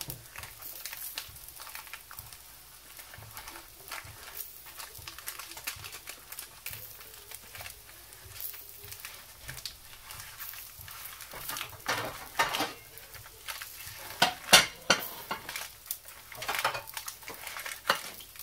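Parchment paper crinkling and rustling under hands as fingers pinch and fold the rim of a dough-topped pie in a lined baking pan. Irregular soft crackles, louder in the second half.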